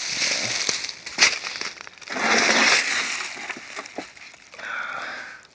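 Dry leaf litter crunching and rustling in three bursts as it is disturbed, with a sharp click about a second in.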